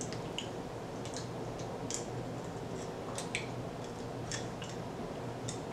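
A dozen or so faint, scattered clicks over a low steady hum: small mouth and swallowing sounds while sipping a cold drink from a glass with ice.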